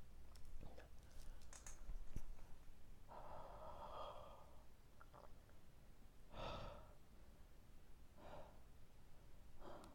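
A man breathing heavily and sighing through the burn of super-hot peppers: one long exhale about three seconds in, then shorter breaths. A few faint clicks come in the first two seconds.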